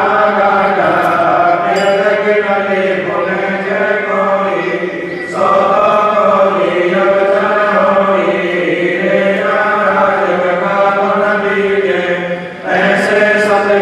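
Devotional chanting of the evening aarti, sung in long held phrases, with short breaks about five seconds in and near the end.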